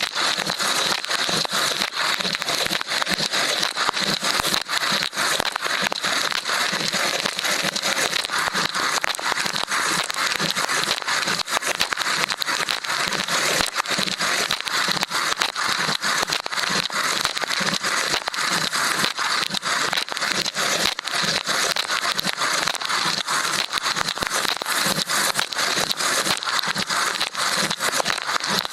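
Water spray inside a running LG dishwasher pelting an action camera's waterproof housing, heard from inside the housing: a dense, steady crackling spatter. A faint high steady tone runs underneath.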